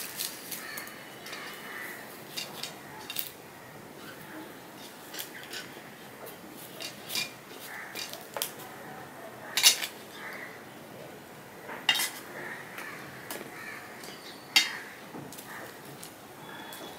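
Crisp bakarkhani flatbread being broken by hand and pressed into milk in a stainless steel plate: small crackles and scattered sharp clinks on the steel plate, three of them much louder than the rest in the second half.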